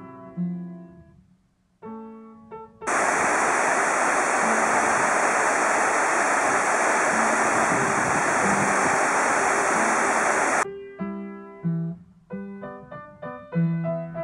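Piano music, broken about three seconds in by some eight seconds of a waterfall's steady rushing. The rushing starts and stops abruptly, and the piano resumes near the end.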